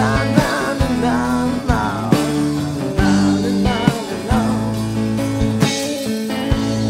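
Rock band playing live: a wavering, bending lead melody over held bass notes and a steady drum beat.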